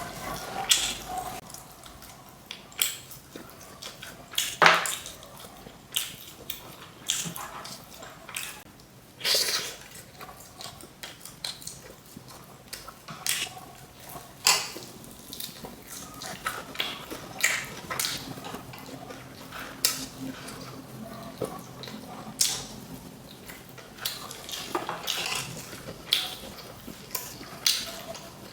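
Close-miked eating of crispy fried chicken: irregular crunching bites, chewing and wet mouth clicks, with a few louder crunches spread through.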